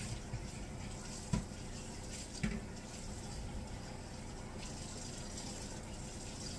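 Salmon fillets frying in butter in a non-stick pan, a steady sizzle. Under it is a faint steady hum, and there are two light knocks, one about a second and a half in and one about two and a half seconds in.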